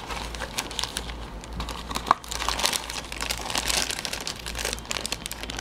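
Clear plastic bag around a plastic model kit's runners crinkling and rustling as it is handled and lifted out of its box, with many small irregular clicks.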